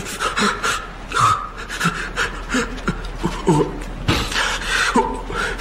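A man who stammers panting and gasping hard, with short broken voice fragments as he strains to get the first word out.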